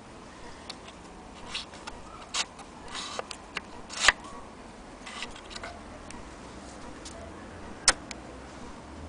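Scattered small clicks and taps as parts of an antique Vesta hand-crank sewing machine are handled, irregular rather than rhythmic, with a sharper click about four seconds in and another near the end.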